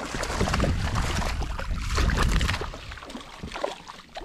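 A hooked spotted seatrout splashing and thrashing at the water's surface, loudest in the first two and a half seconds, then quieter splashing as a landing net scoops it from the water near the end.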